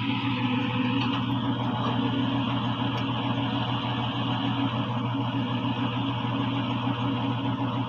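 Excavator's diesel engine running at a steady pitch.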